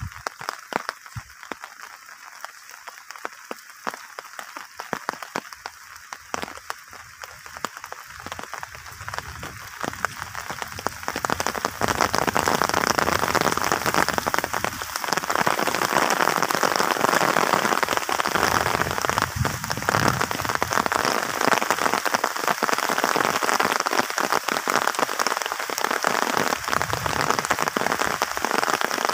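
Rain pattering in a dense, crackling hiss of drops, growing heavier and louder about twelve seconds in.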